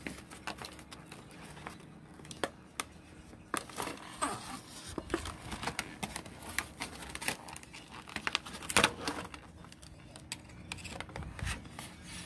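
A folding knife slitting open a stiff plastic blister pack: crinkling and crackling of the plastic with irregular sharp clicks.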